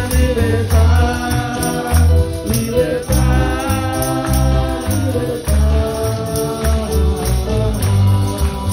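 Live church band music: a bass line and keyboard under a held melody, with a steady jingling beat.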